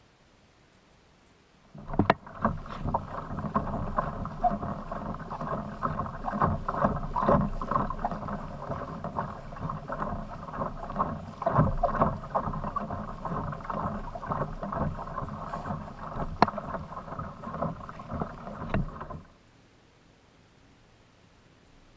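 Kayak on the water: water splashing and slapping against the hull, mixed with irregular knocks. The sound is muffled and dull. It starts abruptly about two seconds in and cuts off abruptly near the end.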